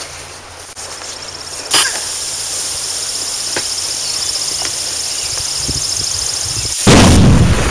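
A steady loud hissing that starts suddenly about two seconds in, like gas escaping from a punctured buried gas line, then a loud boom near the end, the loudest sound.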